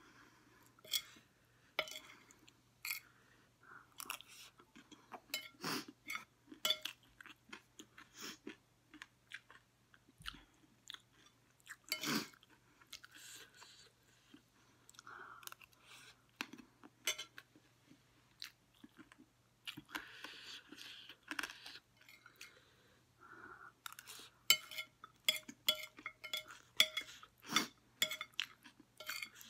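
Close-up crunchy chewing of chatpate, a spicy Nepali puffed-rice snack: many sharp crunches, coming in a fast run near the end.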